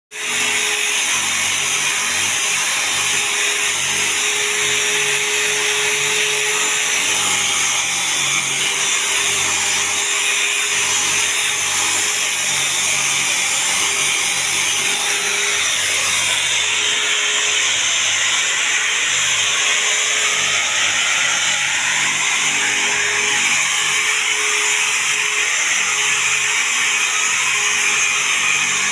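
Handheld electric rotary polisher with a round pad, running at speed and scrubbing upholstery fabric on a sofa cushion: a steady motor whine.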